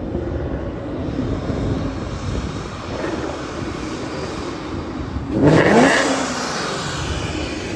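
Ford Mustang V8 with an off-road X-pipe exhaust rumbling steadily, then revved sharply about five seconds in, the pitch rising quickly before easing back to a rumble.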